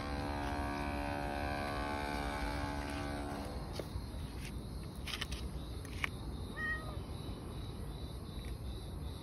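A steady humming tone with many overtones that stops about three and a half seconds in, then a single short cat meow about two-thirds of the way through, with a few faint clicks just before it.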